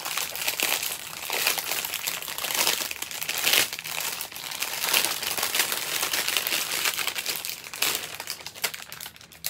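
Clear plastic bag full of small bagged diamond-painting drills being handled by hand, crinkling continuously, easing off near the end.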